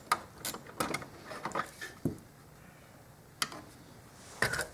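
Scattered clicks and light knocks of hand tools and small dash parts being worked loose: several in the first two seconds, a single knock a little past halfway, and a short cluster near the end.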